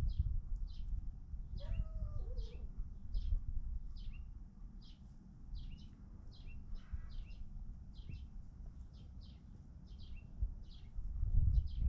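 A bird chirping over and over, short high chirps that fall in pitch, about one to two a second, over a steady low rumble. A lower, falling call sounds once about two seconds in.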